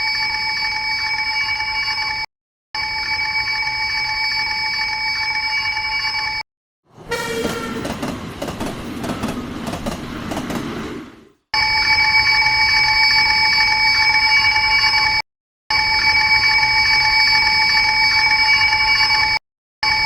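Japanese railway level-crossing warning bell ringing in several stretches with short breaks between them. Near the middle the bell gives way for about four seconds to a train running past, a noisy rumble with clattering clicks.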